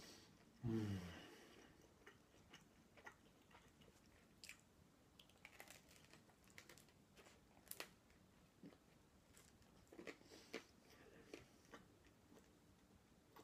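A person chewing and biting crusty French baguette with cheese: faint, scattered crunches and wet mouth clicks. About a second in there is a short hum falling in pitch, the loudest sound here.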